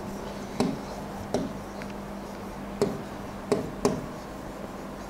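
Marker pen writing on a whiteboard: about five short, sharp taps and clicks at uneven intervals as the tip strikes and moves across the board.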